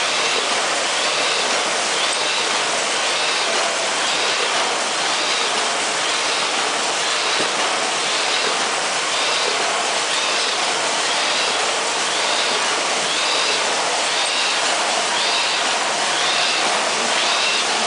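Automatic flute laminating machine for corrugated board running steadily, with a light repeating swish about once a second as sheets feed through.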